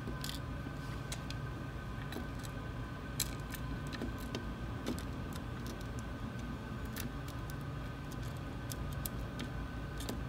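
Small metal screws and a hex screwdriver clicking and scraping against a 3D-printer extruder block as the screws are set and turned in by hand, a sharper click about three seconds in, over a steady machine hum.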